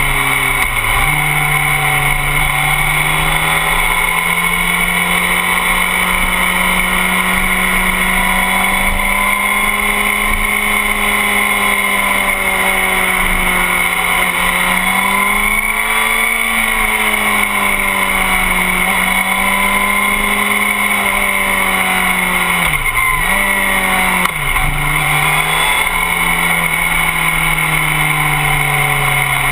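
Motorcycle engine running hard on a track, its pitch rising and falling with the throttle and dipping sharply three times: about a second in and twice near the end.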